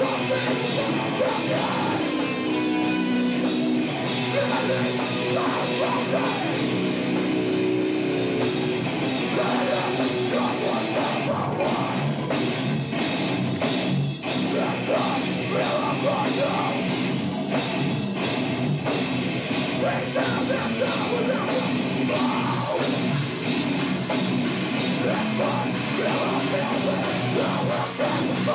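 Metalcore band playing live, with distorted guitars, drums and vocals, loud and continuous, recorded on a camcorder.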